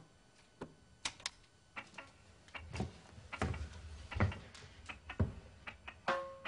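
A button click on a CD stereo receiver, followed by a scattering of soft clicks and a few duller knocks, typical of the disc being loaded and started. Music begins about six seconds in.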